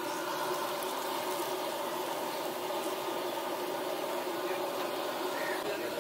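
Medu vadas deep-frying in a large kadai of hot oil: a steady sizzling and bubbling, with an even hum underneath.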